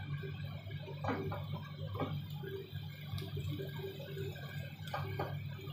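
Silicone spatula stirring minced pork, corn and broth in a pan, a few soft scraping strokes about a second in, about two seconds in and twice near the end, over a steady low hum.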